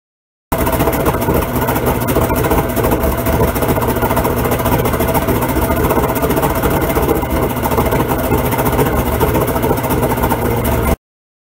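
Outboard motor running steadily with its propeller in a water-filled bucket under a stovepipe muffler, churning and splashing the water. The sound starts abruptly about half a second in and cuts off abruptly near the end.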